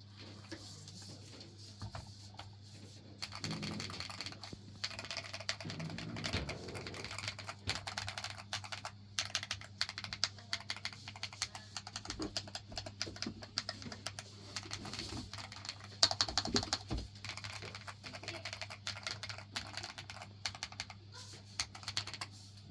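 Typing on a Lofree FLOW 2 low-profile mechanical keyboard with Silver Surfer switches: a few scattered keystrokes, then fast, continuous typing from about three seconds in that stops just before the end.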